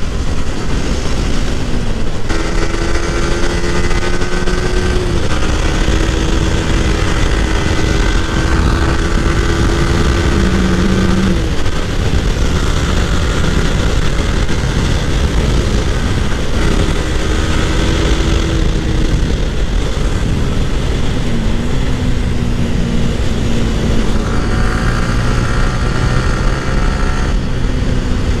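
Motorcycle engine running under way at a steady cruising pitch, with heavy rushing noise from wind and the road. The engine note holds for several seconds at a time and shifts in pitch a few times, with a brief dip and rise about two-thirds of the way through.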